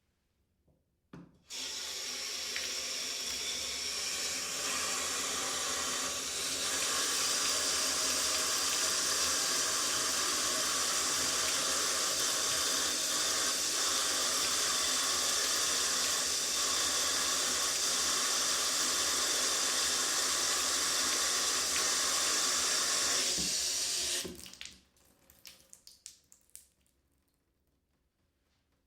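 Bathtub filling from the tap: about a second in the tap is turned on, and water runs steadily into the tub. At about 24 seconds the flow is shut off, leaving a few drips and small splashes.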